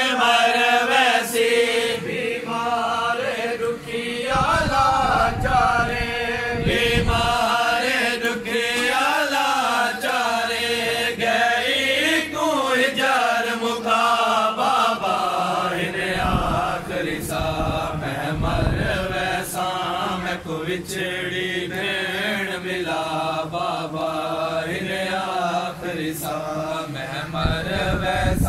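A man's voice chanting a Shia noha, a mourning lament for Karbala, in long, wavering, drawn-out melodic lines with no pause. Low rumbles come in a few times beneath the voice.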